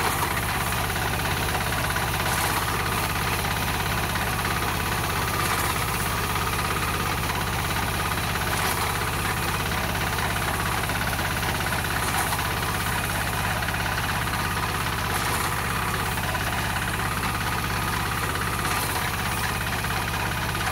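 Engine of a walk-behind two-row reaper binder (model 4K-50) running steadily while the machine cuts standing wheat and ties it into sheaves.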